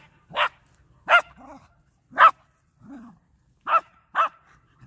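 Small terrier barking: five sharp, high barks at uneven gaps, with two softer, lower sounds between them.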